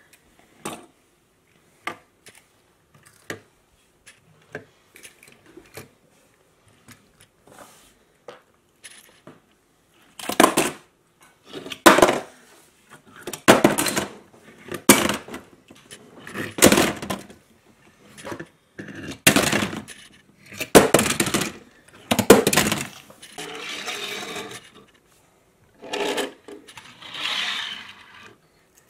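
Die-cast metal toy cars clicking lightly as they are handled, then a run of loud short clatters about once a second as the toys drop into a plastic tray one after another. Near the end come a couple of longer scraping sounds as cars are pushed across the tabletop.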